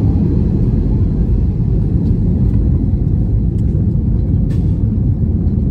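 Steady low rumble of an Airbus A321 airliner heard inside its cabin while the plane moves on the ground, with a few faint rattles in the middle.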